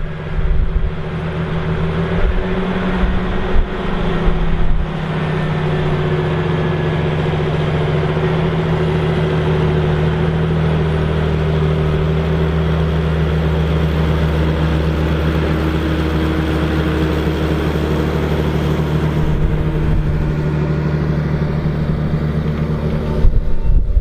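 John Deere 8530 tractor's six-cylinder diesel engine running steadily under heavy load while pulling a seven-furrow plough. Wind buffets the microphone in the first few seconds and again near the end.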